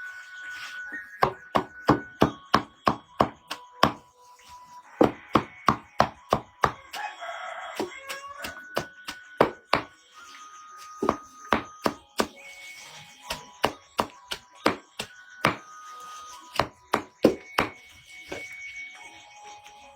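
Repeated chopping with a blade, sharp knocks about three a second in runs of several strokes, with short pauses between runs.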